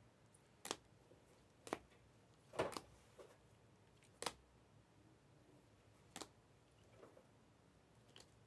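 Rigid plastic trading-card holders clicking and tapping against each other as a stack of cards is flipped through by hand: a handful of short, faint clicks spaced about a second apart, over near silence.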